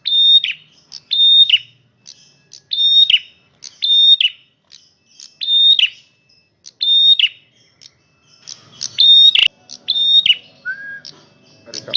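Loud, repeated call of a male prenjak merah: short high whistled notes, each held briefly and then dropping, repeated about every second or so. A sharp click sounds a little after nine seconds in.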